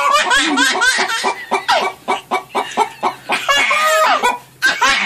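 Chickens clucking: a quick run of short calls that bend up and down in pitch, with a short break about four and a half seconds in.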